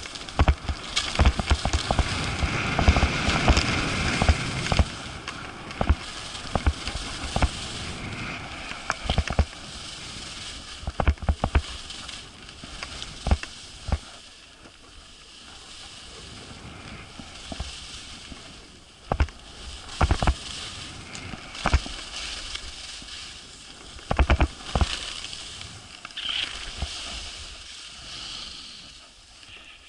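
Skiing heard from the skier's own camera: skis scraping over packed snow and wind rushing on the microphone, with many short knocks and bumps. It is loudest in the first few seconds and quieter in the second half.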